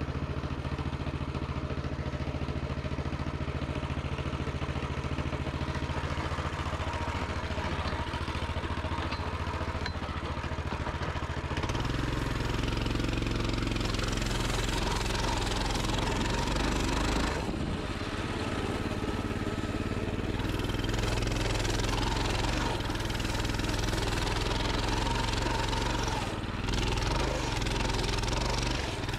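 Pit bike engine idling steadily, then about a third of the way in the throttle opens and it runs harder under load as the bike pushes through deep snow, easing off briefly twice.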